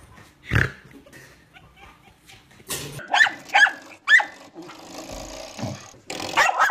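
A dull thump about half a second in, then a dog barking in a quick run of short, sharp yips, with more yips near the end.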